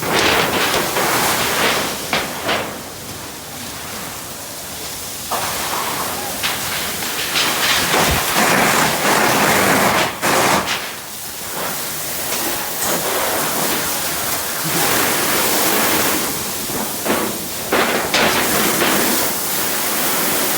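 Fire hose spraying a jet of water, a loud rushing hiss that swells and eases as the stream moves.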